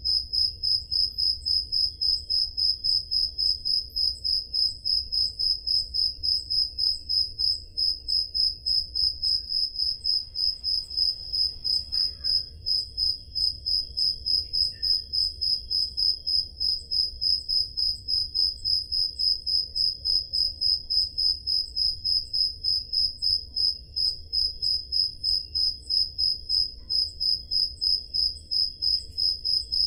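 Crickets chirping at night: one loud, high chirp repeating steadily about three times a second, with fainter chirping and a low rumble underneath.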